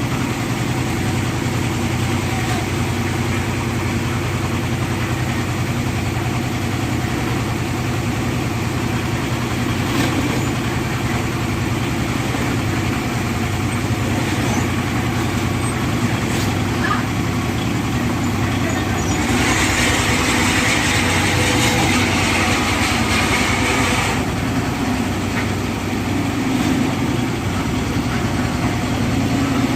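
Engine of a mini lift and concrete mixer machine running steadily. Roughly two-thirds of the way through, a hissing rush joins it for about five seconds, then stops abruptly.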